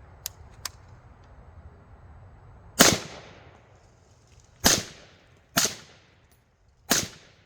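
AR-15 fired four times through an OSS HX-QD 762 suppressor: sharp, short reports at uneven intervals, each with a brief decaying tail, the first the loudest. Two faint clicks come just before the first shot.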